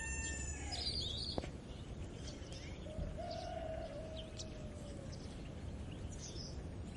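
A rooster's crow trailing off in the first second, then small birds chirping at intervals over a faint rural background, with one longer held call about three seconds in.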